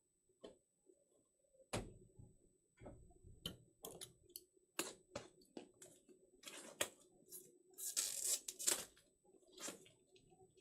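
Hands handling plastic card top loaders and trading-card packs: scattered light clicks and taps, with a short burst of rustling about eight seconds in.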